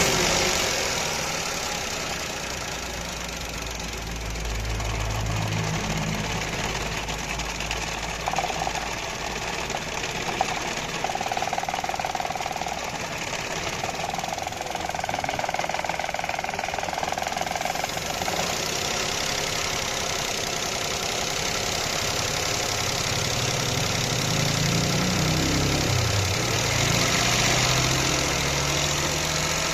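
Petrol car engine running at idle, its engine note rising and falling a little near the end, while it is checked for a misfire.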